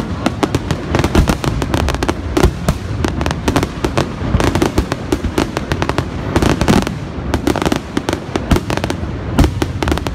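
Fireworks display: aerial shells bursting in rapid, overlapping loud bangs and pops, many reports a second.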